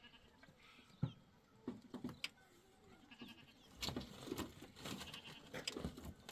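Sheep bleating faintly in a flock, over scattered sharp clicks and knocks that grow busier from about four seconds in.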